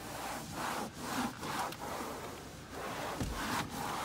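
A cloth rag wiped back and forth over a textured dashboard, a rubbing sound in quick repeated strokes, about two or three a second.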